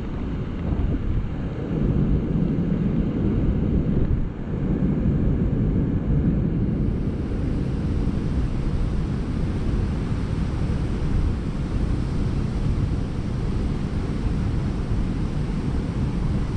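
Steady low rumbling noise of wind buffeting the microphone over the rush of water from a dam spillway, with a brighter hiss joining about seven seconds in.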